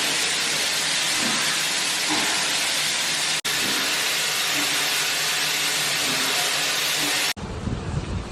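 Steam locomotive venting steam: a loud, steady hiss. It breaks off sharply twice, and near the end gives way to a quieter low rumble.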